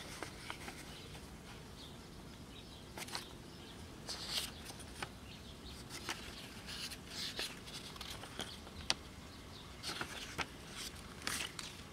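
Pages of a thin paper booklet being turned and handled with nitrile-gloved hands: faint, scattered paper rustles and light ticks, the sharpest tick about nine seconds in.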